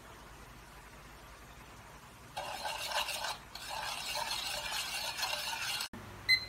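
Metal spoon stirring sugar and yeast into warm water in a bowl: a steady scraping swish that starts about two seconds in and cuts off suddenly near the end. A short high beep follows just after.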